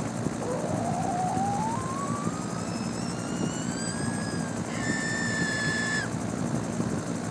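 A steady rumble with a whine that rises in pitch over the first few seconds, then a high steady tone that cuts off suddenly about six seconds in.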